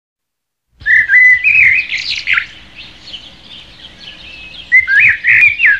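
Bird chirping and whistling in quick, gliding notes, in two bursts: one starting about a second in, the other near the end.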